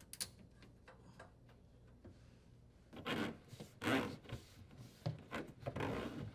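A dishwasher drain hose being handled and pulled through the cabinet, rubbing and scraping against it in several short bursts in the second half, after a few faint clicks.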